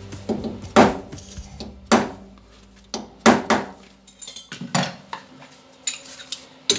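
Sharp metallic clinks and knocks, about six, spaced irregularly, as steel spacer pieces and tools are handled at a lathe's three-jaw chuck while its jaws are opened and set.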